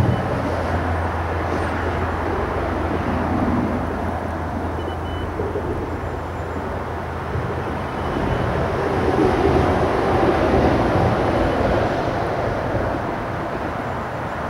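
Steady rumble of road traffic from a nearby bridge, swelling for a few seconds about two-thirds of the way through.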